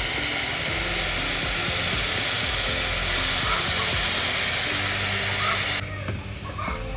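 Hot butter sizzling steadily in a wok, a constant hiss that cuts off abruptly about six seconds in, under soft background music.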